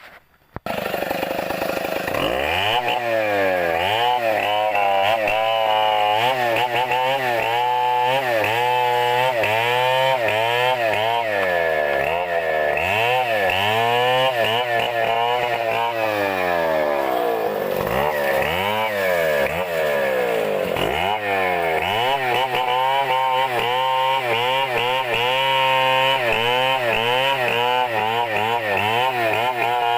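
Chainsaw cutting into a coconut palm trunk. It comes in loud about half a second in, then runs with its pitch repeatedly rising and falling as it is revved and loaded, dropping sharply twice past the middle before picking up again.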